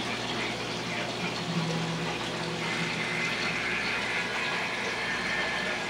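Home aquarium's water circulation and air bubbler: a steady wash of bubbling, splashing water with a faint low hum.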